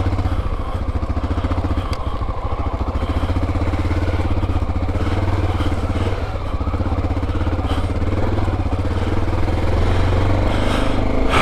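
Honda XR650L's air-cooled single-cylinder four-stroke engine running steadily as the dual-sport motorcycle is ridden, with a deep, even thump.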